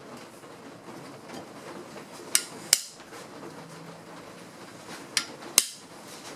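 Metal parts of a cast-iron bench plane clinking against each other, in two pairs of sharp, ringing clinks a few seconds apart.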